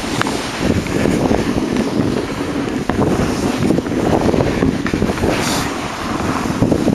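Wind buffeting the camera's microphone: a loud, steady rush with a brief hiss about five and a half seconds in.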